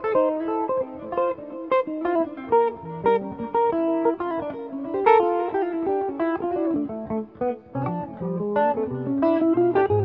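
Jazz guitar duet: two guitars play plucked single-note lines that weave in counterpoint. Lower bass notes come in during the last couple of seconds.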